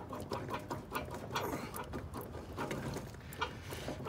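Pliers working on metal at the mower's front wheel hub: short, irregular clicks and small squeaks as the jaws grip and twist a part.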